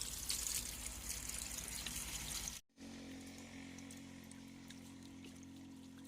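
Liquid pouring for about two and a half seconds, then the sound cuts off abruptly. After the cut, a quieter steady low hum with a few faint ticks.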